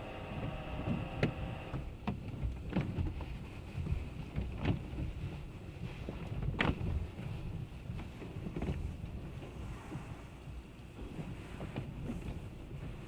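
Automatic car wash heard from inside the car: a low, muffled rumble of water and machinery on the body, with scattered sharp knocks and taps against the car.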